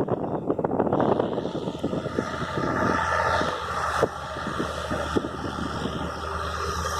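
An engine running steadily, its low hum setting in about a second in, over wind and surf noise.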